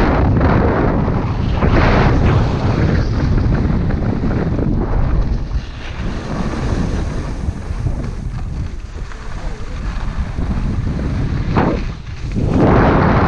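Wind buffeting an action camera's microphone as a skier moves downhill at speed: a loud, rumbling rush that swells and eases, is quieter through the middle, dips briefly near the end and then comes back strongly.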